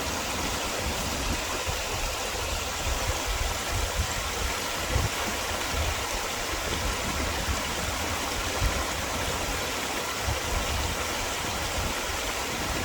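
Small forest stream flowing steadily over rocks, with an uneven low rumble underneath that swells and fades.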